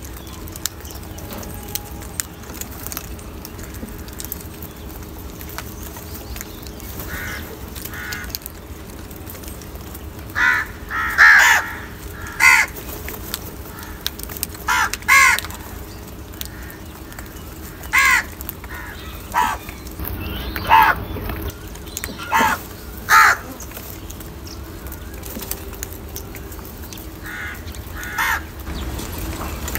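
House crows cawing: short harsh caws, sparse at first, then a run of them from about ten seconds in through the middle, and a couple more near the end.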